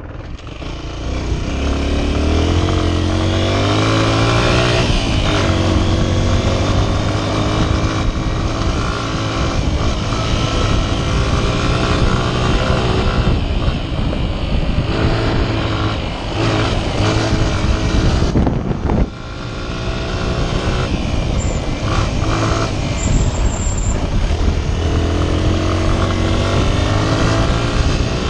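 Honda XR 125's single-cylinder four-stroke engine under way, revving up and falling back again and again through throttle changes. About two-thirds of the way through the engine note drops out sharply for a moment, then climbs again.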